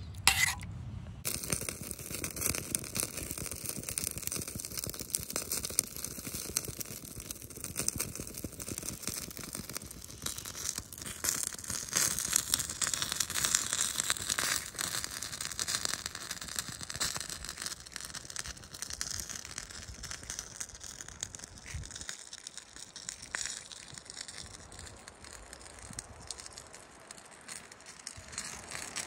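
Wind in pine treetops: a rustling hiss full of small crackles that swells around the middle and dies down near the end.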